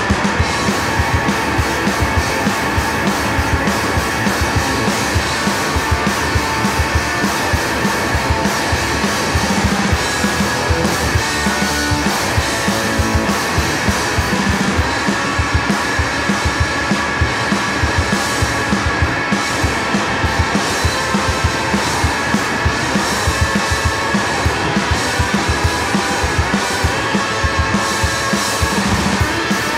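Rock'n'roll band playing: electric guitar over a driving drum-kit beat.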